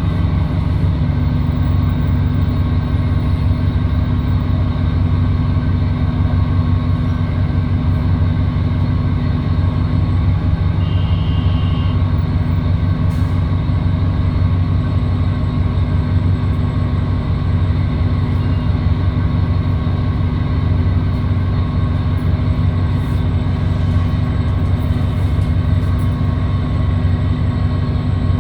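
A city bus engine and drivetrain heard from inside the cabin, running with a steady low drone. A brief faint high beep sounds about eleven seconds in.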